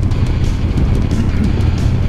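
Background rock music over the steady low sound of a motorcycle engine running at road speed, with wind noise.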